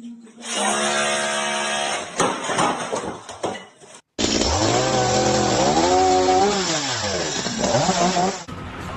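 A motor running steadily with a hum and some clicks. After a sudden cut, a louder motor revs up and falls back down over a few seconds.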